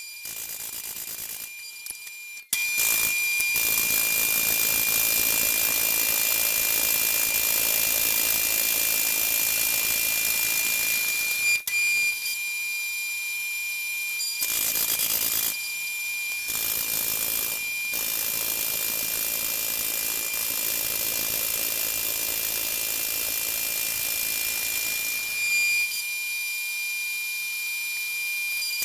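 Jet JMD-18 mill-drill running two stacked high-speed-steel slitting saws through a 4140 steel bar, cutting a slot pass by pass. A steady high whine sits over a hiss, louder from about two and a half seconds in, with several abrupt jumps in level.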